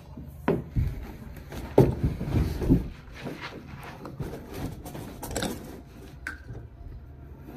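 Irregular knocks, bumps and rubbing as hands handle and turn a plastic water tank, with the loudest knock about two seconds in.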